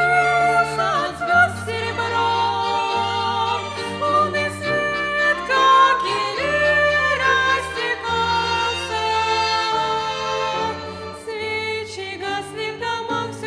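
Women's voices singing a slow song with a string ensemble accompanying, held low notes shifting every second or two beneath the melody.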